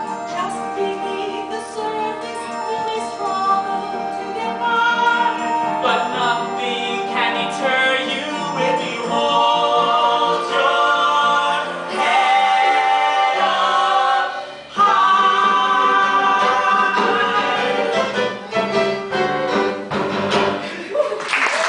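Several singers in a stage musical singing together in harmony over instrumental accompaniment, with a short break about fifteen seconds in before the song ends on long held notes. Applause breaks in at the very end.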